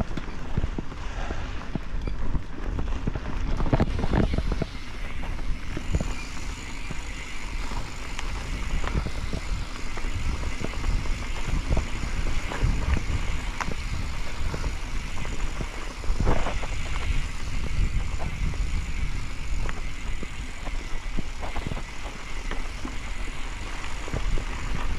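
Mountain bike rolling over a dirt singletrack trail, heard from a handlebar-mounted camera: a steady rumble of tyres and wind on the microphone, with frequent short knocks and rattles from the bike jolting over bumps.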